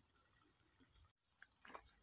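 Near silence, with a couple of faint short taps near the end.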